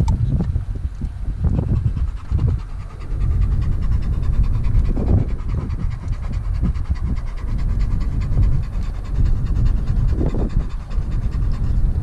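Dog panting close by over a steady low rumble.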